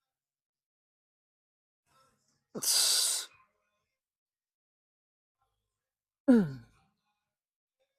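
A man breathing hard while lifting: a forceful exhale lasting under a second, then a few seconds later a short sigh-like groan that falls in pitch.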